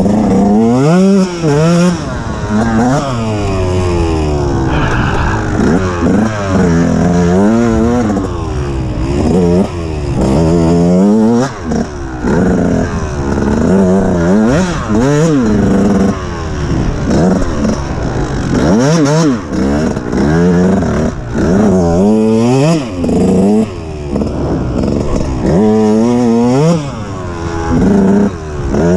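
A KTM two-stroke dirt bike being ridden hard, heard from the rider's onboard camera. The revs climb and drop over and over as the throttle is opened and shut and the gears are changed.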